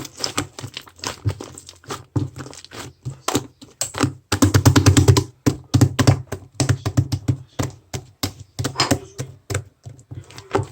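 Rapid, irregular clicks and knocks of hard objects tapping, densest about four seconds in.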